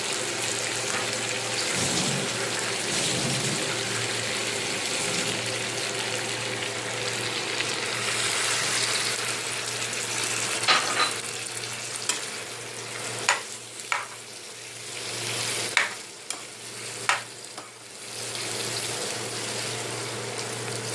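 Chicken 65 pieces sizzling in a pan of chilli sauce just splashed with water, while a spoon stirs them. In the second half the spoon knocks against the pan six or so times.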